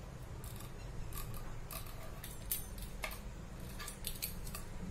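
Metal fluted pastry wheel rolling along the edge of a folded karanji on a plastic cutting board, trimming and crimping the dough: a string of short, light ticks and scrapes.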